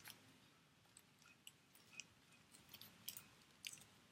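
Near silence with faint, scattered small clicks and crinkles of paper and adhesive tape being handled on a scrapbook page.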